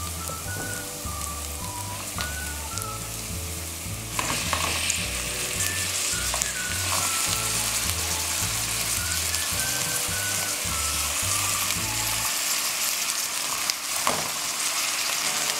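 Tilapia pieces sizzling as they go into hot olive oil with frying onion and garlic in a pot; the sizzle grows louder about four seconds in. Soft background music with a repeating bass line plays underneath and stops near the end.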